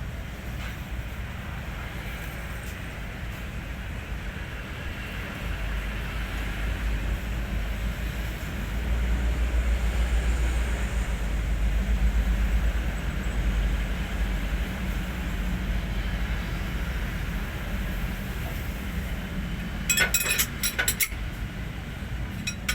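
Hino 500 truck's diesel engine running with a steady low rumble that gets louder about nine seconds in and eases off a few seconds later. Near the end there is a quick cluster of sharp metallic clicks.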